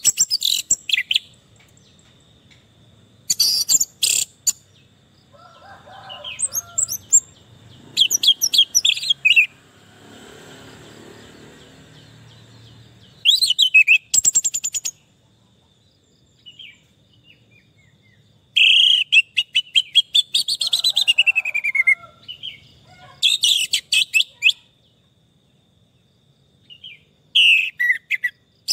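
Orange-headed thrush singing in short, varied phrases of sweeping whistles and rapid trills, about eight phrases separated by pauses of one to four seconds.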